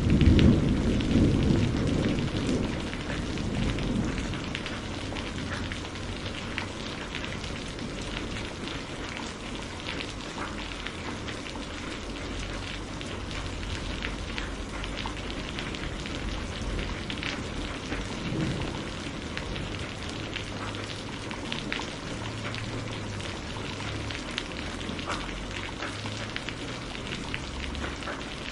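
Heavy rain falling steadily with a dense patter of drops, and a roll of thunder at the start that dies away over about four seconds.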